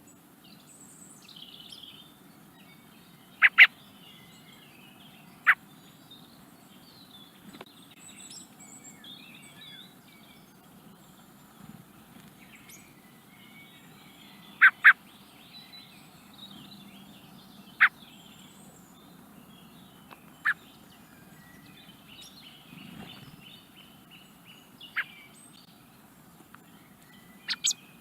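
Young Eurasian blackbird giving short, sharp call notes every few seconds, some in quick pairs, over faint twittering.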